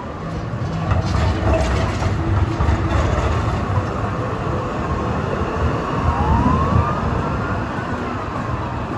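Melbourne Z-class tram running past on street rails with a low rumble, and a single rising tone about six seconds in.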